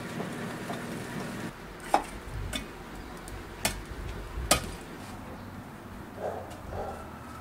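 Charcoal being stirred in a brick grill: a low steady hiss at first, then four sharp clinks and scrapes between about two and five seconds in, and two softer knocks near the end.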